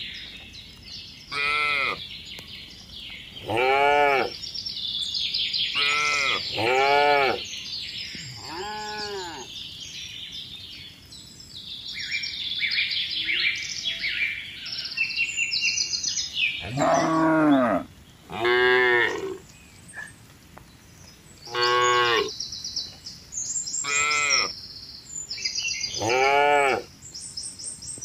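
Cattle mooing, about ten separate drawn-out calls of roughly a second each, one of them noticeably deeper, with birds chirping faintly between them.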